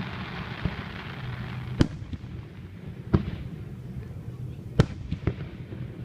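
Aerial fireworks shells bursting, with a series of sharp bangs at uneven intervals. The loudest come about two seconds in and about five seconds in, with a quick cluster of smaller bangs just after the second.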